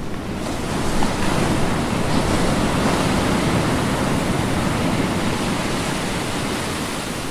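Storm sound effect: a steady rushing noise of wind and surf, swelling up over the first second and easing slightly near the end.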